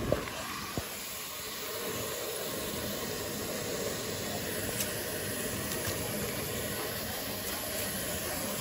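Water running steadily from a pedicure spa faucet into the plastic-lined foot tub, a constant hiss.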